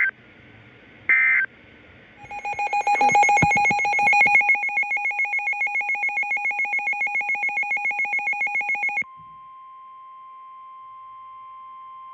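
The last two short screeching bursts of an EAS end-of-message data signal. About two seconds in, a rapidly pulsing electronic alarm beep starts and runs for about seven seconds. It then gives way to the steady 1050 Hz NOAA Weather Radio warning alarm tone, which marks the start of a new warning broadcast.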